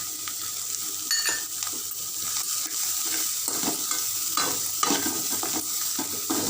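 Cauliflower and scrambled egg sizzling in a frying pan with a steady hiss, while a spoon stirs and scrapes through them, making irregular scrapes and clinks against the pan.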